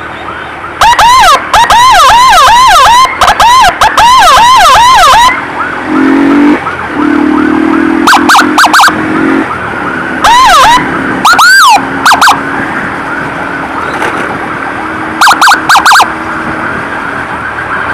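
Escort motorcycle's electronic siren yelping in fast rising-and-falling sweeps for about four seconds, then in short blips every few seconds, very loud and close. A fainter ambulance siren wails steadily underneath, and a low horn-like buzz sounds for a few seconds about six seconds in.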